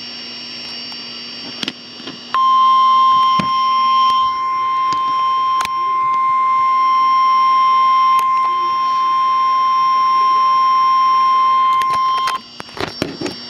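NOAA Weather Radio warning alarm tone: a single steady 1050 Hz beep that starts about two seconds in and holds for about ten seconds before cutting off, announcing a warning broadcast. It sits over the receiver's hiss, with scattered sharp crackles of static.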